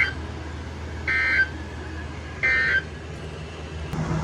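Emergency Alert System digital data bursts from a NOAA Weather Radio broadcast. The last moment of one short two-tone warbling burst is followed by two more, about a second and a third apart. These are the three End-of-Message bursts that close an EAS alert, here after a weekly test, over a steady low hum.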